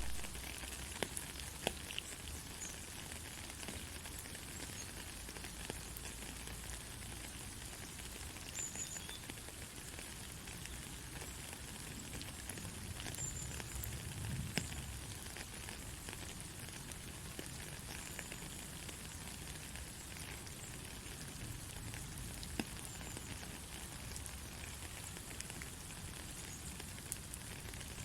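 Gentle rain falling steadily, with scattered sharp ticks of single drops hitting a surface.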